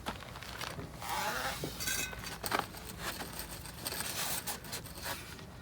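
Carbon-fibre pole sections being handled and pushed together: rubbing and scraping, with a brief squeak about two seconds in and a sharp click just after.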